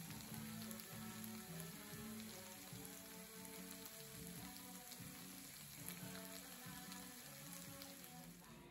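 Chopped bacon and onion sizzling steadily in a frying pan, with soft background music of low held notes.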